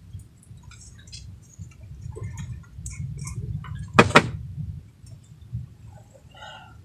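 Low steady rumble with scattered light ticks and clicks, and a sharp double knock about four seconds in.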